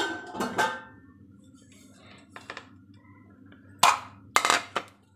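Dishes clinking and knocking against a bowl while spices are added to a yogurt marinade. There are a few sharp knocks near the start and a quick run of three or four more about four seconds in, over a low steady hum.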